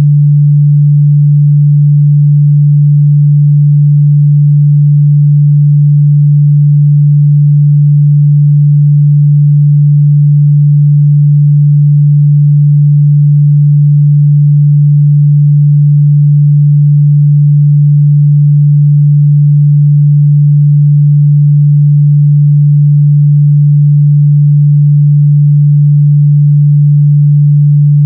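A steady, loud 146 Hz sine-wave test tone, a single unchanging low hum with no variation.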